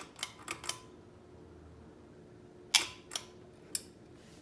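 A series of sharp mechanical clicks, a quick run of four at the start and three louder ones later, over the faint steady hum of an SMC UF42 ceiling fan running on worn bearings.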